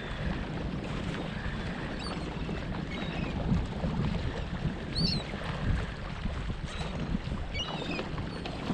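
Wind rushing over the microphone and water moving around a kayak on open sea, with seagulls giving several short high calls.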